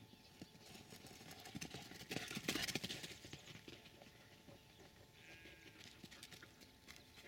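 Quick thudding footfalls of dogs running, off-camera, building to a dense flurry of thuds two to three seconds in, then thinning out.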